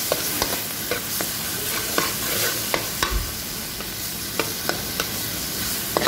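Spoon stirring a sauté of salmon, tomato and onion in a metal pot over a steady sizzle, knocking and scraping against the pot about ten times at uneven intervals.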